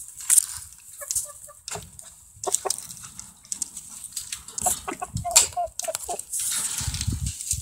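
Chickens clucking close by while a chain-link gate is unfastened, with scattered metallic clinks and rattles from the fence wire. A rustling noise comes in near the end.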